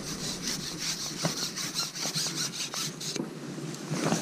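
Fishing pole being slid back through the hands and over its rest: a quick run of rubbing strokes, about five a second, stopping about three seconds in, then a couple of clicks near the end.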